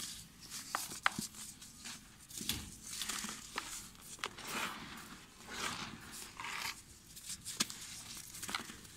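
Soft, dry red dirt blocks crumbled and crushed by hand, with fine dirt pouring and hissing through the fingers in repeated gritty bursts. A few sharp cracks come as pieces snap.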